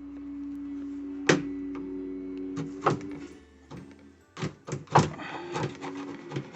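A screwdriver carving a latch recess into the wooden edge of a door, worked by hand in place of a chisel: sharp knocks and taps, a single strike about a second in and another near three seconds, then a quick run of them in the second half.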